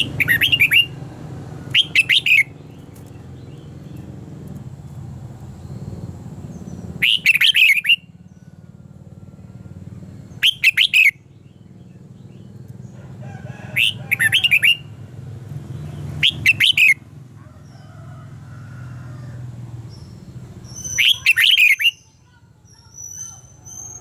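Red-whiskered bulbul singing: seven short, loud song phrases, each under a second, a few seconds apart. A steady low rumble runs beneath them.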